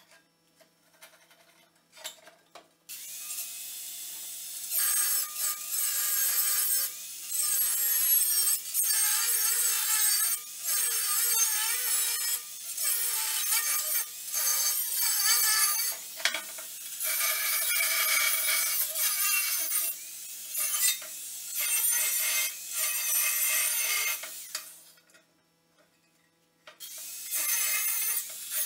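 Angle grinder with its disc biting into steel in repeated passes, its pitch wavering as the load changes. It starts about three seconds in and stops for a couple of seconds near the end before starting again.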